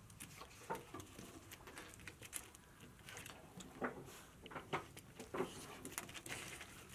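Faint, scattered taps and scuffs of a puppy and a dog moving about on gravelly dirt, with no vocalising.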